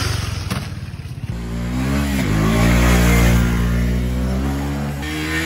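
A KTM Duke's single-cylinder engine runs close by with a fast, even pulsing. About a second in, a motorcycle engine revs hard, its pitch climbing and falling several times.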